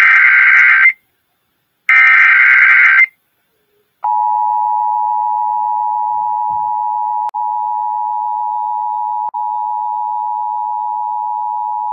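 Emergency Alert System header: the last two of three loud, harsh bursts of digital data screech, each about a second long, followed about four seconds in by the steady two-tone EAS attention signal, held for about eight seconds with two brief dropouts. It announces a new alert, here a tornado warning.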